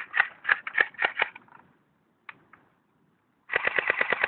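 M83 BB gun firing: a quick uneven run of shots, a pause of about two seconds, then a rapid full-auto burst of about twelve shots a second starting near the end.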